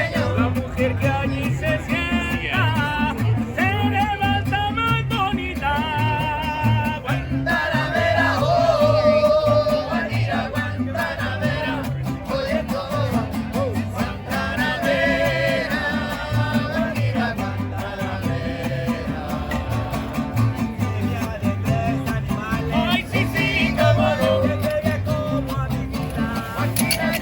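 Live band music: wavering melody lines with vibrato over a steady, pulsing bass beat.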